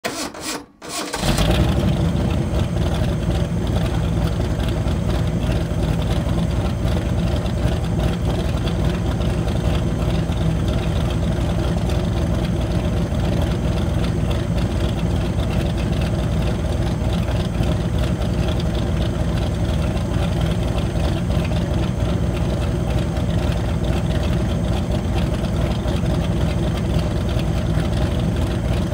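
Vintage sports car engine starting: a brief crank, catching about a second in, then idling steadily.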